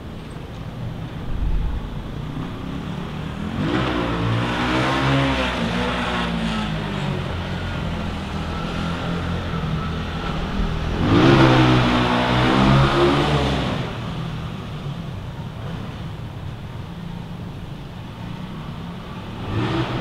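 City street traffic: two motor vehicles drive past, one about four seconds in and a louder one about eleven seconds in, each engine's pitch bending as it goes by. A steady low traffic hum runs underneath.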